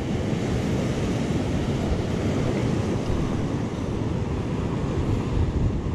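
Ocean surf breaking and washing over a rocky shoreline, a steady rushing noise, with wind buffeting the microphone.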